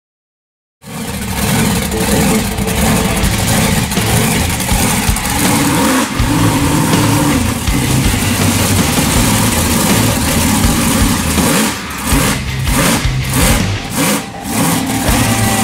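Monster truck's big engine running loudly as it rolls slowly on a paved road. The sound cuts in suddenly about a second in, and its loudness dips briefly a few times near the end.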